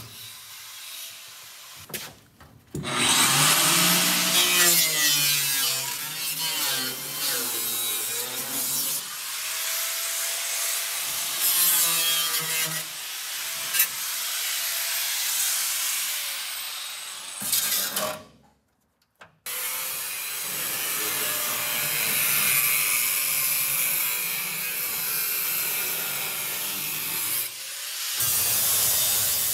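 Angle grinder with a cutting disc cutting through a rusted sheet-metal floor pan. Its pitch dips and rises as the disc bites. It stops twice briefly, once near the start and once past the middle.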